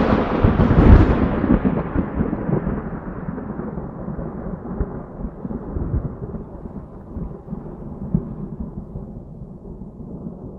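A thunderclap: a sharp crack peaking again about a second in, then a long rolling rumble that slowly fades and grows duller.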